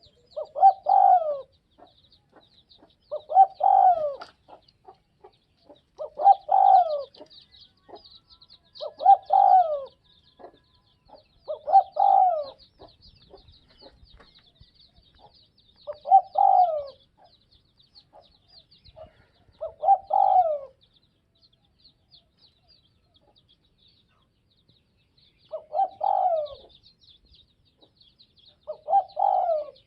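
Spotted dove cooing: nine short phrases, each about a second long, repeated about every three seconds with two longer pauses. Faint, rapid high chirping runs underneath.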